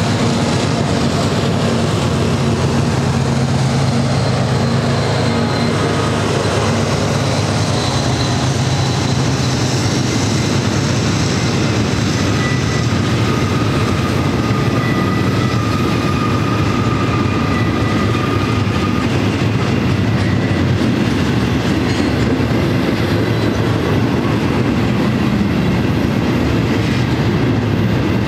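Double-stack intermodal container cars rolling past close by: a steady rumble and clatter of steel wheels on rail, with thin high wheel squeals now and then on the curve. The drone of the departing Union Pacific GE locomotives fades over the first few seconds.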